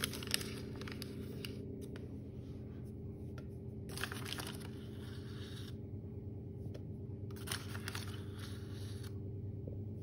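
A bag of corn starch crinkling as it is unwrapped and handled, with a spoon scraping as starch is scooped into a kitchen robot's steel mixing bowl. The crinkles and scrapes come in short spells every second or two over a steady low hum.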